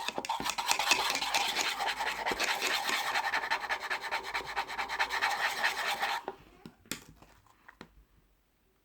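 Rapid, scratchy rubbing, a fast back-and-forth stroking that stops abruptly about six seconds in, followed by a few faint clicks.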